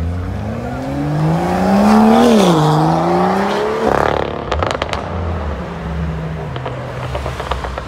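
BMW M2's turbocharged straight-six accelerating hard, its pitch rising, dropping at a quick upshift about two seconds in, then rising again. About four seconds in the engine note cuts off and the exhaust gives a string of sharp pops and crackles as the car pulls away.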